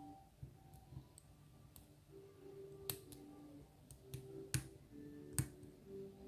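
Scattered sharp clicks of a hook pick working the pins inside a lock cylinder, with three clearer clicks about halfway through and near the end. Faint background music plays underneath.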